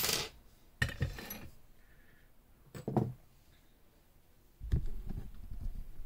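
Metal clinks and knocks as a lever safe lock is handled in and out of a vise on a wooden workbench: a sharp click at the start, a clatter about a second in and a duller knock about three seconds in, then low rumbling handling noise near the end.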